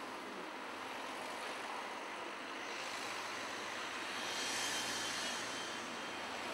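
City street traffic: a steady hiss of passing vehicles, swelling as one goes by about four to five seconds in.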